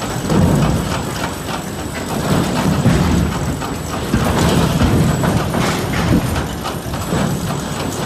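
Heavy wood-processing machinery running, with dense, irregular clattering and knocking over a low rumble.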